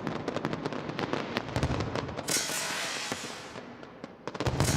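Fireworks display: a rapid run of sharp crackles, then a rushing hiss about two seconds in that fades away, then a loud bang near the end.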